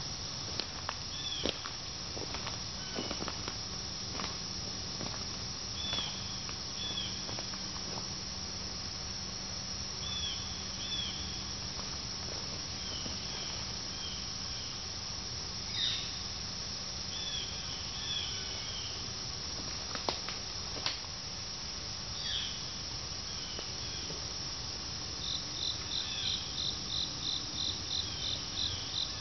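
Steady chorus of late-summer insects such as crickets, with scattered short bird chirps and a few sharp clicks or snaps. Near the end comes a rapid run of high chirps, about four a second.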